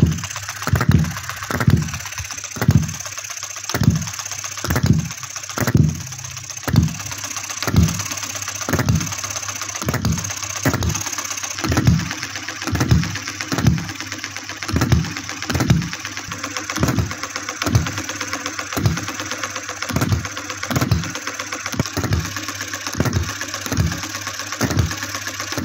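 Miniature single-cylinder hit-and-miss gas engine running, firing with a sharp pop about once a second over a fast, steady mechanical clatter from its crank and valve gear.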